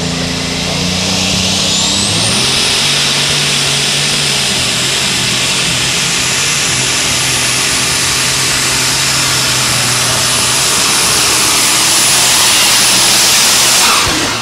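Case Light Super Stock pulling tractor's engine at full throttle under load, with a high turbocharger whine that climbs about two seconds in and then holds steady. Near the end the sound drops away as the engine is let off and flame shoots from the stack.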